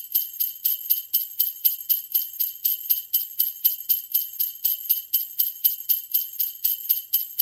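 Jingle bells shaken in a steady, even rhythm, about four shakes a second.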